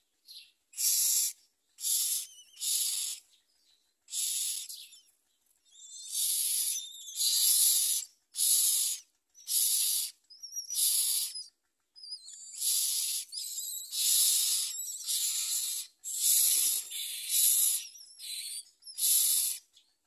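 Common myna nestlings begging: harsh, hissing rasps, each under a second long, repeated about once a second from about a second in.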